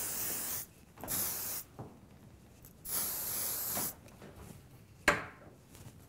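Aerosol shine spray hissing onto hair in three short bursts, the last about a second long. A single sharp knock follows about five seconds in.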